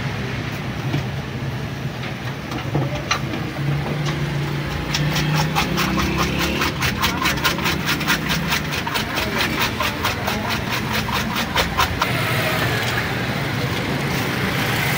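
Eggs being beaten with a wire whisk in a metal bowl: fast, even clicking strokes, about six a second, starting about five seconds in and stopping about three seconds before the end, over a steady low hum of street traffic.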